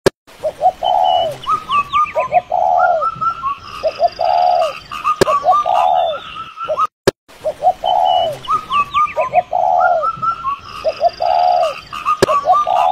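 Several birds calling and chirping: one repeated short, arched call over quicker, higher chirps and twitters. The sound cuts out briefly about seven seconds in, and the same calls then repeat.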